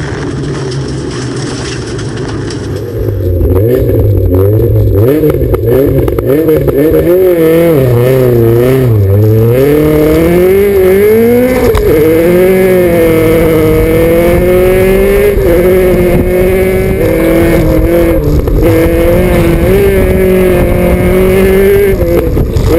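Volvo 240 rally car's engine at full throttle on a gravel stage, the revs repeatedly rising and falling through gear changes and corners. It gets much louder about three seconds in.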